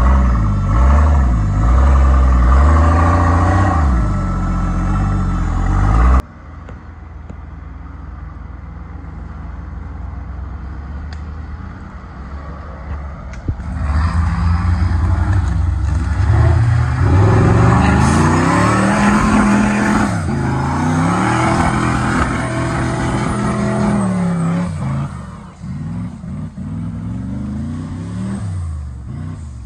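Off-road competition 4x4 truck engines revving hard, rising and falling in pitch. About six seconds in the sound cuts abruptly to a quieter low rumble, then builds again into revs that climb and fall.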